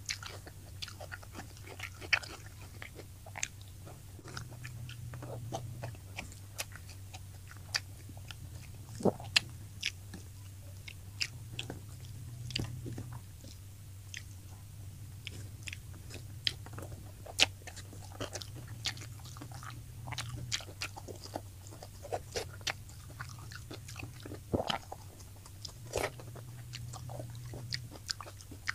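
Close-up chewing and biting of fried tilapia, with irregular crisp crunches and mouth clicks a few times a second.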